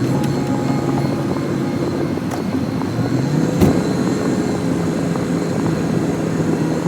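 Diesel-type engine of a snowplowing vehicle with an angle blade running steadily under load, its revs dropping and climbing back a couple of seconds in, with a single sharp knock just past the middle.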